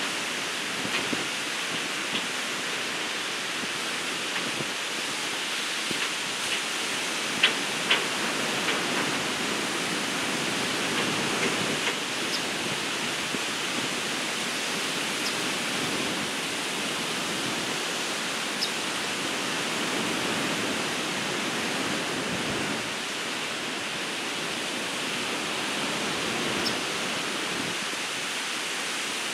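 Ocean surf breaking on a beach: a steady rushing of waves with no distinct individual crashes, and a few brief faint ticks, the sharpest about seven and a half seconds in.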